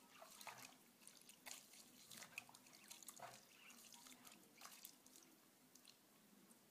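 Faint wet squelching and small splashes of a hand kneading and squeezing grated carrots in water, mashing them to press out the juice. The sounds come irregularly and die away near the end.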